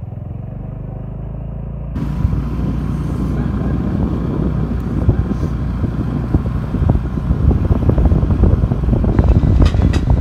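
A motor vehicle running and driving, its engine a steady low hum. About two seconds in the sound becomes louder and fuller, with many small knocks and rattles.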